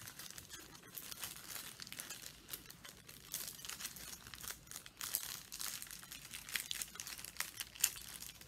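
Packaging being handled by hand, rustling and crinkling in faint, irregular crackles.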